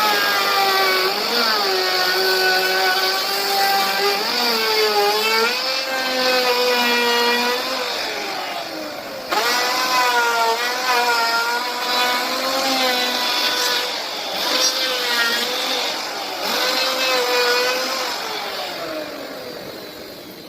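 Electric power tool motor running at high speed; its pitch sags and recovers repeatedly as it bites into the wood. It stops abruptly about nine seconds in, starts again, and winds down with a falling pitch near the end.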